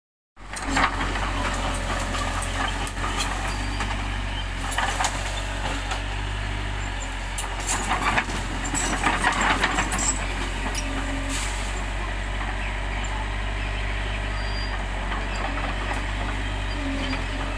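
Bulldozer's diesel engine running steadily under work, with scattered metallic clanks and rattles from the machine, thickest in a run of knocks around the middle. The sound cuts in suddenly about half a second in.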